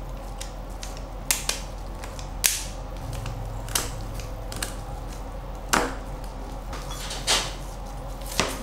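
Kitchen scissors snipping through the fins of a whole snapper: about seven separate sharp, crunching clicks, spaced a second or so apart.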